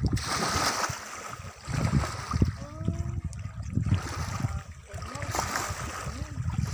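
Wind gusting across the phone's microphone in uneven low rumbles, over the wash of small waves lapping at a lake shore.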